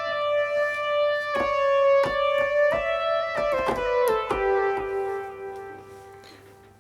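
Korg Modwave synthesizer playing a phased lead patch modelled on the ARP Quadra's lead section. It plays a single melodic line of sustained notes with short slides between them, then fades away over the last couple of seconds.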